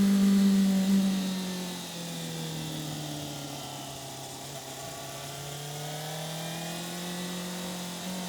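Yamaha FZ6's inline-four engine under way on the road: the note is loudest at first, eases down about a second in as revs drop, then holds steady at lower revs and creeps up slightly near the end, over a haze of wind noise.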